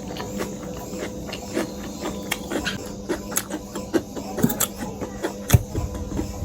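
Close-miked eating of noodles: irregular wet clicks and smacks of chewing, a few a second, with a stronger one about five and a half seconds in, over a faint steady hum.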